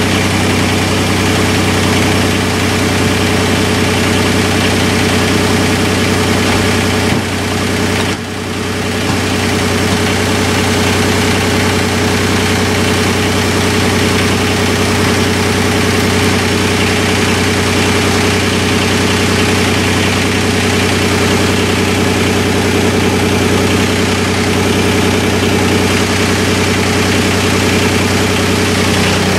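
An engine idling steadily, with a short dip in level about seven to eight seconds in.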